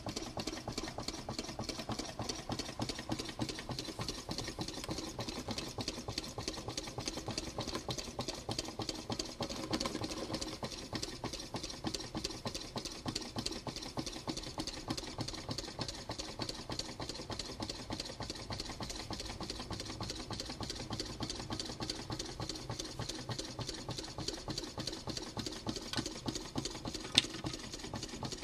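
Homemade Coke-can Stirling engine running, its crank and linkage clicking rapidly and steadily. A single sharper click sounds near the end.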